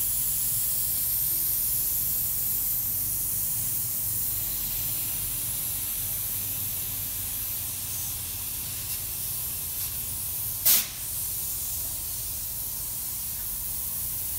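Compressed air hissing steadily through the air line into a pneumatic foam tank as it fills from the compressor, starting suddenly and slowly easing. A short, louder burst of sound about ten and a half seconds in.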